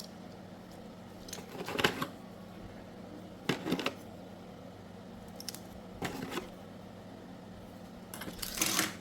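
Small hard plastic hair clipper accessories being handled, giving a few separate clusters of light clicks and taps.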